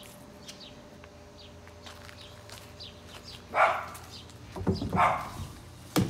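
Two short barks about a second and a half apart, over faint bird chirps and a steady low hum.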